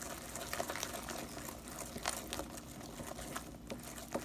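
Pink silicone whisk beating thick chocolate brownie batter in a glass bowl: wet, sloshing stirring with many quick, irregular ticks from the whisk strokes.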